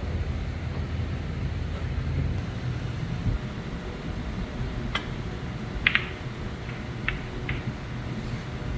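Snooker cue striking the cue ball about five seconds in, followed by sharp clicks of the balls hitting each other and the cushions: a quick double click a second later, then two more single clicks. A steady low room hum runs underneath.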